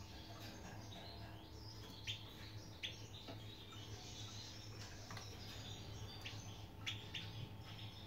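Caged European goldfinches twittering, many short high calls overlapping, with a few sharper chirps standing out about two, three, five and seven seconds in. A steady low hum runs underneath.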